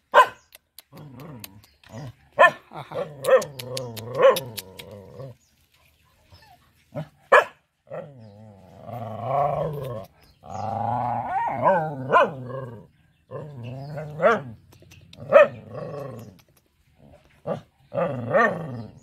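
Mother dog barking repeatedly at a person near her puppies, defensive barking: short sharp barks mixed with longer drawn-out calls in the middle.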